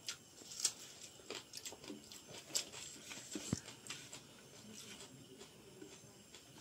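Close-up eating sounds: wet chewing and lip smacks as rice and chicken gravy are eaten by hand. There are irregular sharp clicks, busiest in the first four seconds and thinning out after.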